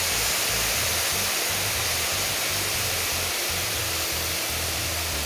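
Spiced butterflied chicken sizzling on a hot grill pan: a steady hiss as the liquid around it boils off into steam.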